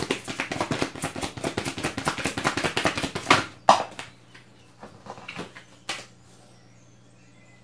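A deck of tarot cards shuffled by hand, a rapid patter of card edges for about three and a half seconds, then two cards slapping down onto the surface in quick succession. After that, a few light taps as the cards are slid into place.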